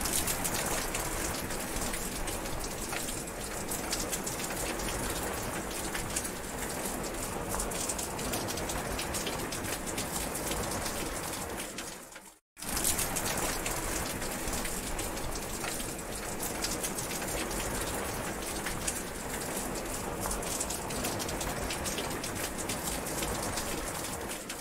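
Steady heavy rain falling in a dense patter. It cuts to silence for a split second about halfway through, then carries on.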